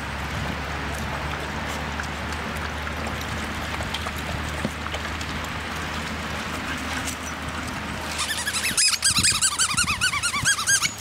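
Dogs lapping water from bowls, followed about eight seconds in by a pit bull puppy's rapid, repeated high-pitched squeals and yelps in play.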